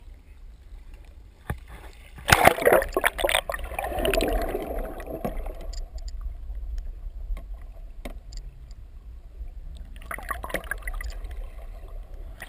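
Seawater splashing and gurgling against a camera as it is dipped under the surface, with a loud burst of splashing crackle about two seconds in that trails off. A second patch of crackle comes near the end, over a steady low rumble.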